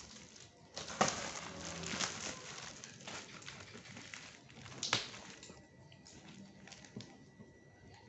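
Cardboard and plastic packaging being handled during the unboxing of an air compressor: a stretch of rustling lasting about a second, then a single sharp knock about five seconds in.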